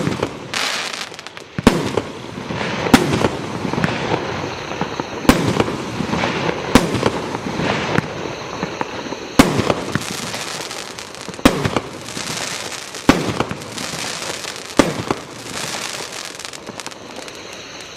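Primed 'Full House' firework going off: sharp reports about every one to two seconds over continuous crackling, thinning out near the end.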